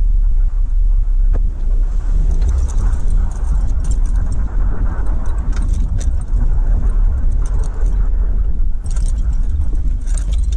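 Car interior noise while driving: a steady low road-and-engine rumble, with light rattling clicks from about two seconds in.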